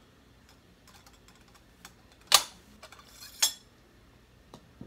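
Two sharp knocks about a second apart: a ball starter striking the brass loading tube on a muzzleloader's muzzle as it pushes the bullet down. The first knock is the louder, with a few faint ticks of handling around them.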